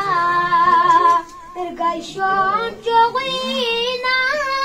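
A boy sings a devotional praise poem (manqabat) solo into a microphone. He holds long notes that waver in pitch, with two short breaks between phrases.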